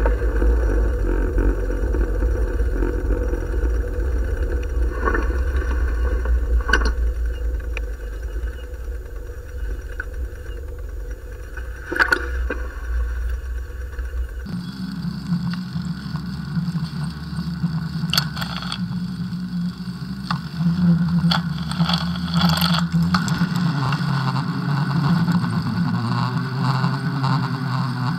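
Street traffic and engine noise heard from a bicycle riding on a sidewalk, with a heavy low rumble of wind on the microphone and scattered clicks and rattles. About halfway through, the rumble cuts off suddenly and a steadier engine hum takes over.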